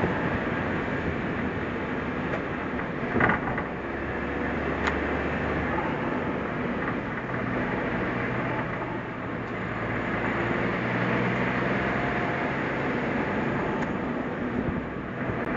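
Suzuki Jimny driving along a forest road: steady engine and tyre rumble. There is a short bump about three seconds in, and the engine note changes about six seconds in.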